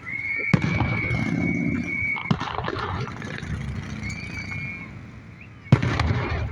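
Fireworks going off: a high, steady whistle lasting about two seconds, sharp bangs about half a second in and at about two seconds, and a louder crack near the end.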